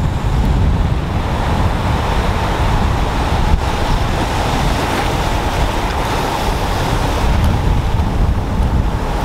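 Surf washing up a sandy beach, with wind buffeting the microphone as a heavy low rumble, and one short click about three and a half seconds in.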